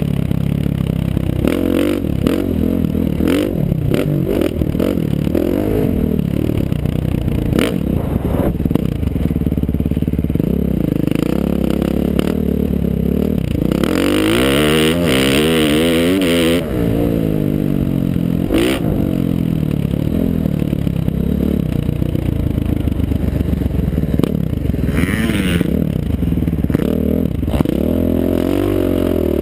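KTM 450 SX-F four-stroke single-cylinder dirt bike engine revving up and backing off again and again through the gears, its pitch rising and falling. The longest pull comes about halfway through and cuts off sharply, with wind rushing over the helmet-mounted camera and scattered clatter from the chassis.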